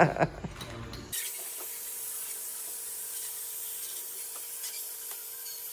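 Offshore life raft being inflated with compressed air through a hose: a steady hiss of air rushing into the buoyancy tubes, starting abruptly about a second in.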